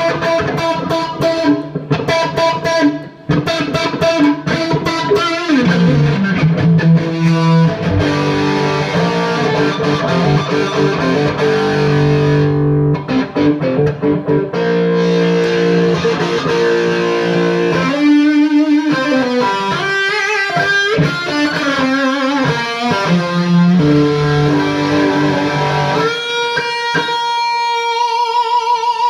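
Stratocaster-style electric guitar played through a Bad Cat Siamese Drive overdrive pedal into a 3rd Power amp: melodic single-note lines and held notes, with a slide down about five seconds in and a held note shaken with fast vibrato near the end.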